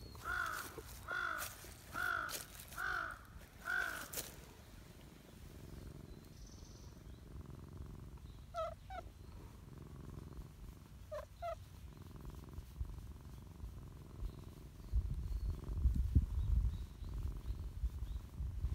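A crow caws five times in quick succession, then calls twice more a few seconds later. Close by, a silver tabby cat purrs steadily while it is stroked, louder near the end.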